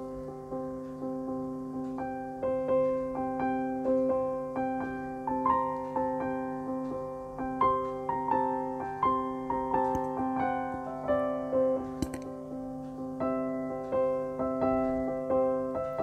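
Background piano music: a melody of separate notes over steady low notes.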